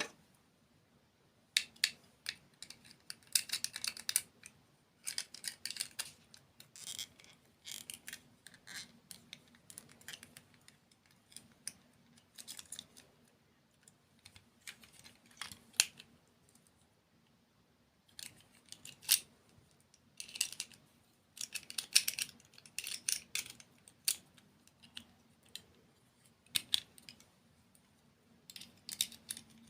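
Close-miked eating sounds: crisp crunching and clicking from chewing, in bursts of a second or two with short pauses between.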